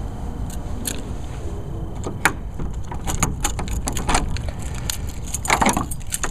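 A ring of keys jangling and clicking against a metal padlock on a shed door hasp. The clicks come in a quick irregular run from about two seconds in and grow busier near the end.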